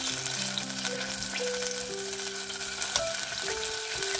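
Minced beef sizzling as it fries in hot oil in a stainless steel pot, stirred and broken up with a wooden spoon, with a few light spoon clicks. Soft background music of slow held notes plays under the sizzle.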